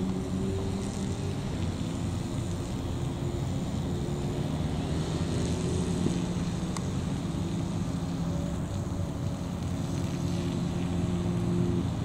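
Airbus A320-214's CFM56 jet engines at takeoff thrust as it lifts off and climbs out: a steady low rumble with a droning hum.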